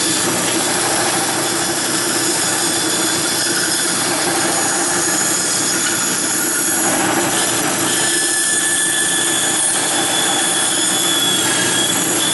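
Bandsaw with a half-inch blade running steadily and cutting through a small block of wood.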